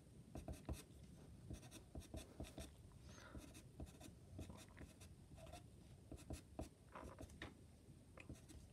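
Pastel pencil scratching faintly on paper in quick, short, irregular strokes, laying down dark fur hairs.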